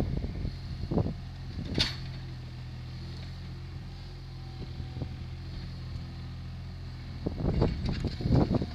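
Compact telescopic loader's engine idling steadily, with a sharp clank about two seconds in. Near the end it revs up and gets louder and uneven as the loader moves in on the log again.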